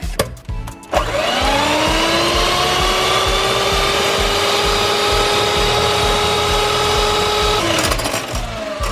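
A few knocks, then about a second in an electric hand mixer starts with a rising whine as its beaters whip cold whipping cream. It runs steadily and drops in pitch near the end.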